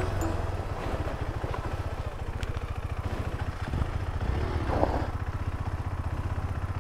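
Motorcycle engine idling with a steady, rapid low pulse, briefly louder just under five seconds in.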